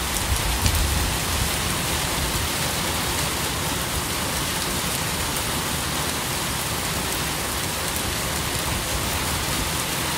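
Steady rain falling on a gravel path and foliage, an even hiss, with a few soft low bumps in the first second.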